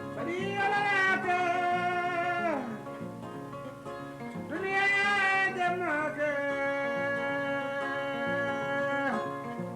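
Kora played with a man singing in Mandinka: two long held sung phrases, each sliding down in pitch at its end, over a steady pattern of plucked kora strings.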